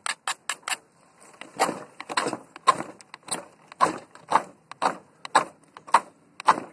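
Ferrocerium fire steel being struck over and over, throwing sparks: a few quick sharp clicks at the start, then a steady run of short rasping scrapes about two a second. These are repeated strikes at lighting tinder that will not catch.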